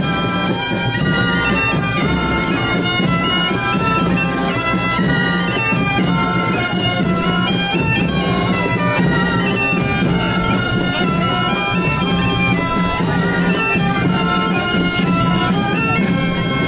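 Bagpipes playing a melody over a steady low drone.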